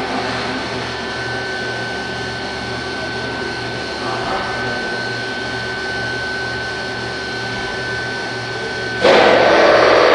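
Daewoo DMV 5025 vertical machining center running: a steady mechanical hum with a thin, steady high whine. About nine seconds in, a much louder rushing noise starts abruptly.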